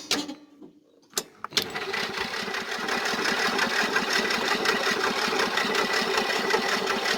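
Old riding lawnmower's electric starter cranking the engine, after a couple of clicks about one and a half seconds in, then a steady, fast whirring that keeps on.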